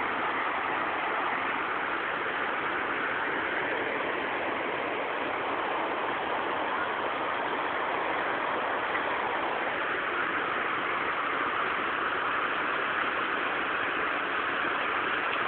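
Heavy rain falling steadily, an unbroken hiss.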